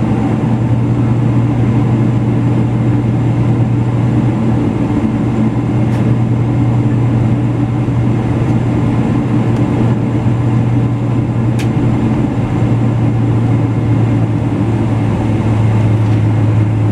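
Boeing 777-200LR taxiing, heard inside the cabin: a steady low drone from its GE90-115B turbofans running at taxi power, with no change in level.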